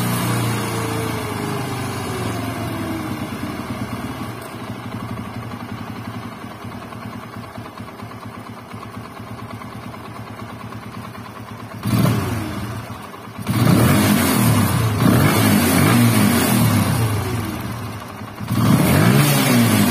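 Single-cylinder engine of a TVS Apache RTR motorcycle running on the bench, its high idle dropping as the carburetor's idle screw is backed off and settling to a low idle. From about twelve seconds in the throttle is blipped and held open in a few revs, the engine picking up quickly, which shows crisp pickup once the air screw is set right.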